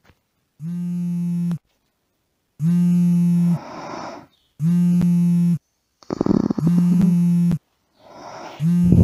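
Mobile phone ringing with a low electronic buzz, one second on and one second off, five times. Softer noises come between some of the buzzes.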